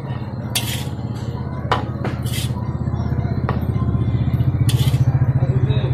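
A low, rapidly pulsing motor hum that grows louder about halfway through. Over it come a few short hisses and a couple of light clinks of a plate being handled.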